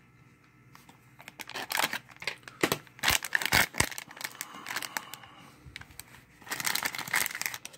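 Foil blind bag being torn open and crinkled by hand: a run of sharp crackles and rustles starting about a second in, loudest around the middle.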